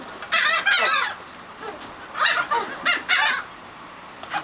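Seagulls calling with harsh, repeated cries in three quick clusters, while they squabble over food.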